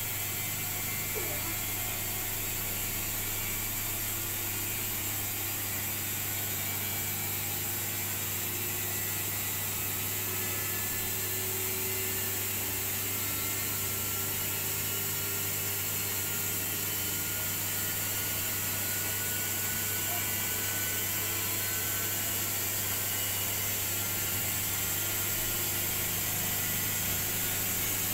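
Bosch WAE20462TR front-loading washing machine in its final spin: a steady low hum with a faint whine that slowly rises in pitch, growing slightly louder as the drum speeds up.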